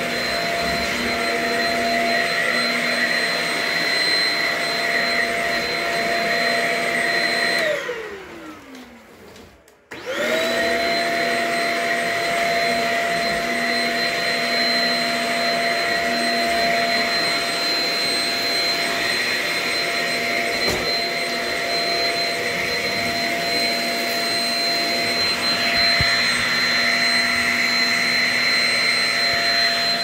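Shark Rocket self-cleaning stick vacuum running with a steady motor whine. About eight seconds in it is switched off and the whine falls in pitch as the motor spins down. About two seconds later it is switched back on and the whine rises quickly to full speed and runs steadily again.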